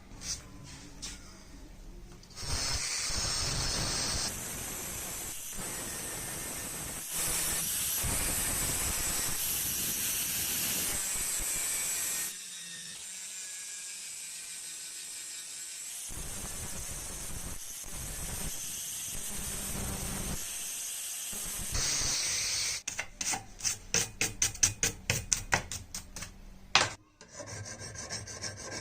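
Abrasive rubbing on the old razor's metal parts, worked by hand. It runs in long steady passes through the first part, then goes quieter, and near the end changes to quick short rasping strokes, about three a second.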